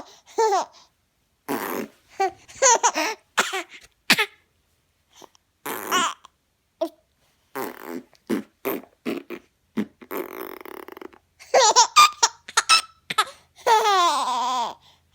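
A young child laughing in repeated short bursts. About ten seconds in there is a buzzy fart noise lasting about a second, and the laughter picks up again right after it.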